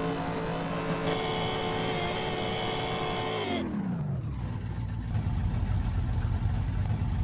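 Animated car's engine sound effect held at high revs. A little over three seconds in, its pitch falls sharply, and then it settles into a louder low, pulsing idle rumble.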